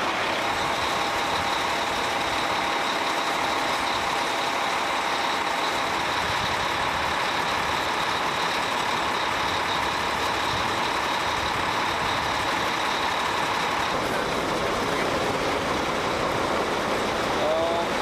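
Heavy airfield snow-removal truck running steadily under load, a constant mechanical drone with a thin steady whine above it. The sound shifts slightly about fourteen seconds in.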